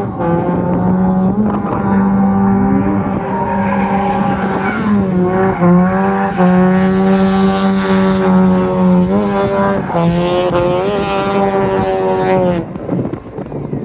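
Drift car's engine held at high revs through a drift, its pitch dipping and rising as the throttle is worked, with tyre squeal. It falls away near the end.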